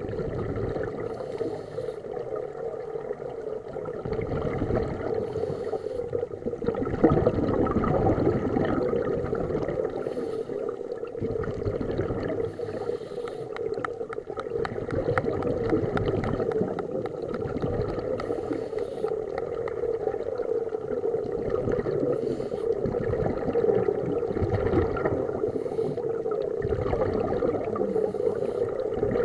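Underwater sound on a scuba dive: scuba regulator breathing, with exhaled bubbles gurgling in a slow rhythm about every four seconds, over a steady low hum.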